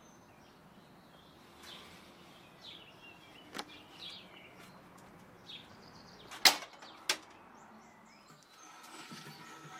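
Small birds chirping now and then, with a few sharp knocks: one about three and a half seconds in, the loudest about six and a half seconds in, and another half a second after it.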